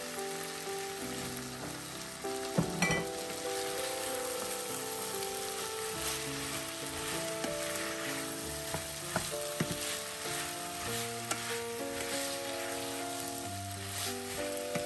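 Chopped red bell peppers and onions sizzling in hot oil in a frying pan as they are stirred with a wooden spoon. Now and then something knocks against the pan, loudest about two and a half seconds in.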